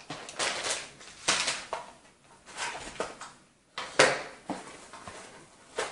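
Cardboard box and plastic-bagged parts being handled and unpacked: rustling and scraping in irregular bursts, with a sharp knock about four seconds in as an item is set down on the table.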